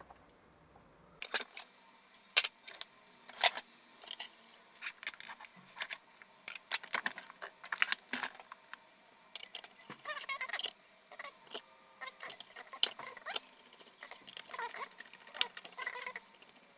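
Irregular clicks, taps and short rattles of a cordless drill's battery pack being put back together by hand, its plastic case parts and cells handled and fitted.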